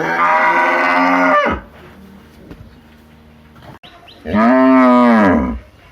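Cow mooing twice: a long call already under way at the start ends about a second and a half in, and a second, shorter moo comes near the end.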